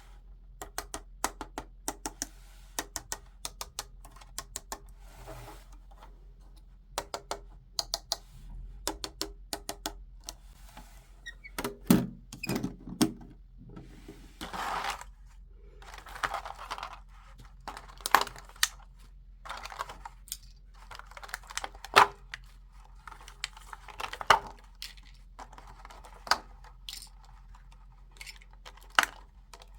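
Plastic toy pieces and packaging handled during an unboxing: a run of quick clicks and taps at irregular spacing, with short rustling swishes around the middle.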